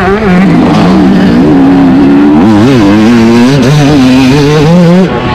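Yamaha YZ250 single-cylinder two-stroke motocross engine revving hard under load, its pitch rising and falling with the throttle. A few quick throttle blips come about halfway, then a long climb in pitch that is cut off near the end.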